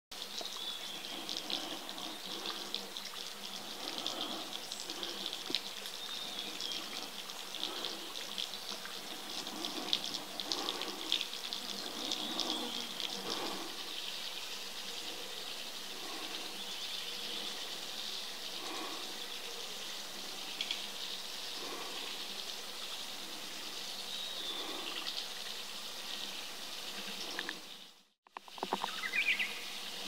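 Small wild birds bathing in a shallow woodland puddle: irregular splashing and water sounds over a steady background of insects and bird chatter, with a short whistled bird call near the end.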